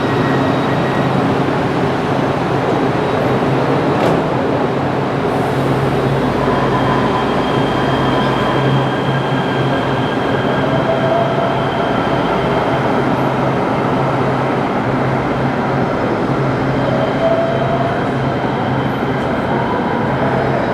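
LA Metro light-rail train running in the Regional Connector subway tunnel: a steady rumble with a low hum, and a faint whine that rises in pitch twice.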